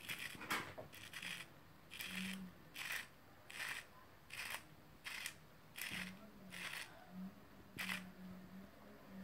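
Salt grinder being twisted over a jar of pesto, grinding salt with a short crunch at each turn, about a dozen turns at a steady pace of roughly one every three-quarters of a second.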